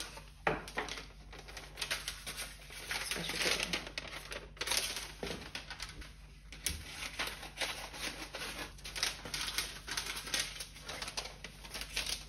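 Foil-backed parchment wrap crinkling and rustling in quick, irregular crackles as it is handled and cut with scissors.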